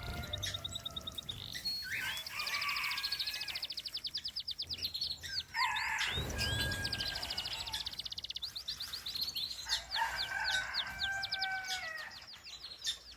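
Gouldian finches chirping and calling: rapid runs of high, quick chirps broken by a few drawn-out buzzy notes, several birds at once.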